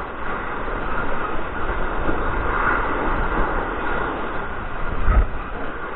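Strong wind buffeting the microphone in a steady noisy rush, with a heavier gust about five seconds in.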